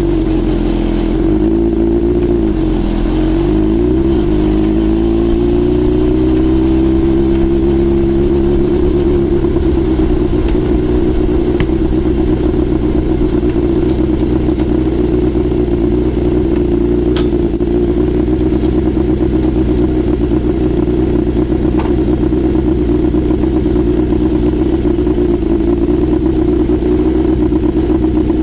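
Honda CBX550F inline-four engine running through a homemade exhaust silencer, heard while riding. The engine note dips and climbs again over the first several seconds, then holds steady.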